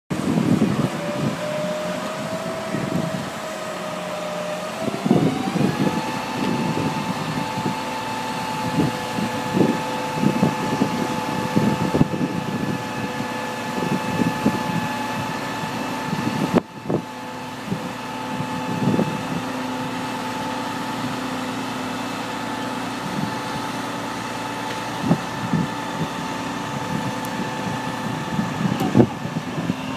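Mobile crane's engine running with a steady whine that rises in pitch about five seconds in as it speeds up to lift the boxed tree, holding there until near the end. Irregular knocks and clatter are heard throughout.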